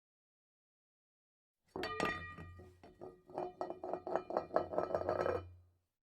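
A quick run of ringing clinks over a low steady hum, starting about two seconds in and cutting off near the end.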